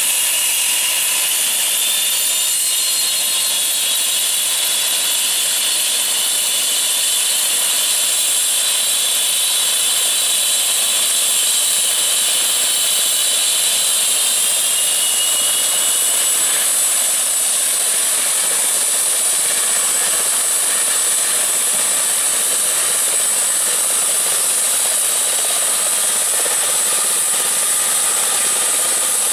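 Turbomeca Arrius 2F turboshaft engine of an Airbus EC120B Colibri helicopter running on the ground: a loud, steady, high-pitched turbine whine, with some of its tones shifting slightly about halfway through.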